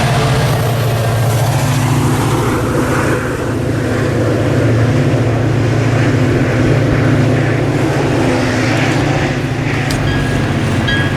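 Commuter train's diesel locomotive running with a steady low drone. Near the end, a repeated high-pitched ding begins.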